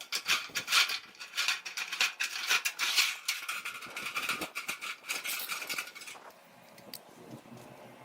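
Shears cutting through a sheet-steel patch panel: a quick, irregular run of sharp metallic cuts and cracks, stopping about six seconds in.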